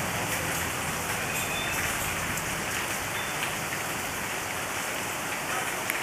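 Steady rain falling on leafy garden plants and a wet street.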